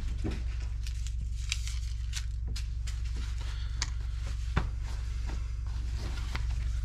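Rustling and crinkling of fabric and plastic packaging as a thick hunting vest and fleece beanie are handled and unfolded, with scattered small clicks over a steady low hum.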